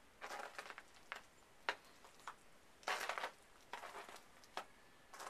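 Footsteps crunching in fresh snow: a handful of short, uneven crunches, the loudest about three seconds in.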